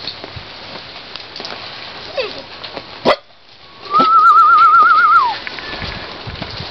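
A whistled trill: one high note held for about a second with a fast, even wavering in pitch, falling away at the end. A sharp knock comes just before it, and rain patters throughout.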